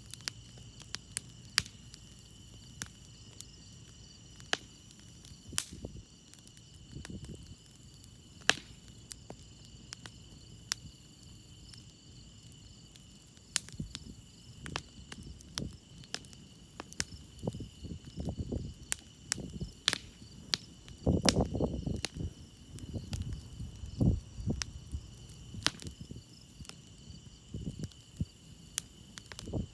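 Campfire crackling, with sharp wood pops scattered throughout, over crickets chirping steadily. Irregular low rumbling bursts come through in the second half.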